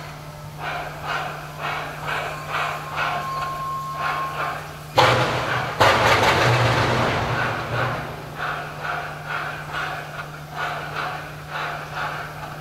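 SY class 2-8-2 steam locomotive working hard up a grade with a loaded coal train: a steady exhaust beat of about two to three chuffs a second. About five seconds in it breaks suddenly into a loud continuous roar of exhaust as the driving wheels slip. The roar lasts about three seconds and then settles back to the regular beat.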